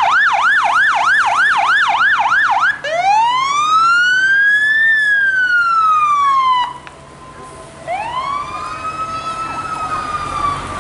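Fire truck siren in a fast yelp, its pitch sweeping up and down about three times a second, then switching to a slow wail that rises and falls. It cuts off abruptly past the middle and starts a second slow wail about a second later.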